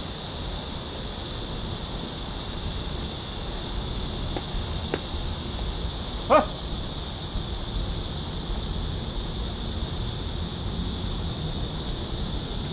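Steady outdoor ambience: a continuous high-pitched hiss and low wind rumble on the microphone, with one short pitched call, like a yelp or bark, about six seconds in.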